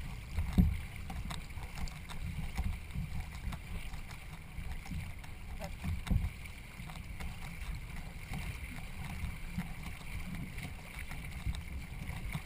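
Racing canoe under way: paddle and water noise with low wind rumble on the microphone and a few scattered knocks, the strongest about half a second in.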